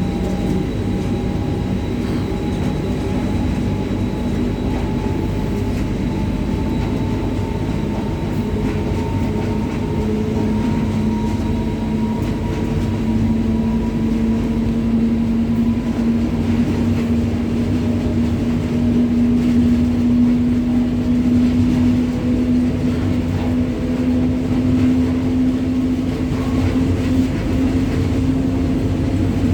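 Indian Railways WAG-9 three-phase electric locomotive running: a steady rumble with a hum that rises slowly in pitch as it gathers speed, then holds steady.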